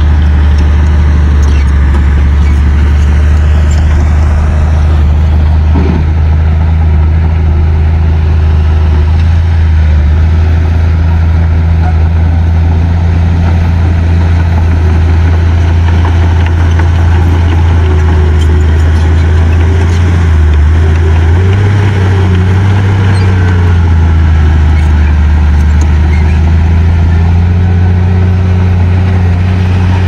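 Small crawler bulldozer's diesel engine running steadily under load, its note shifting up about twenty seconds in.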